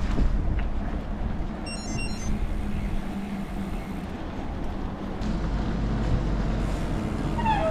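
Steady rumbling road and wind noise from riding a loaded touring bicycle on a road, with wind on the microphone.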